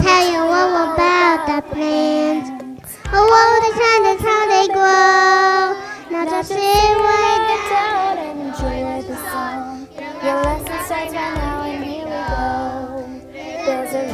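A class of first-grade children singing a song about plants together, a simple tune in unison with held notes.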